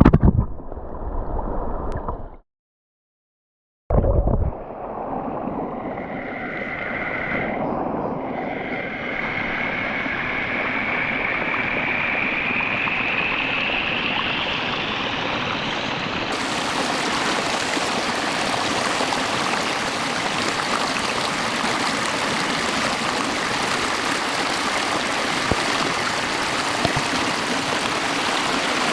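Steady rushing water of a stream, after about a second and a half of dead silence near the start. A thin tone rises slowly in pitch through the first half.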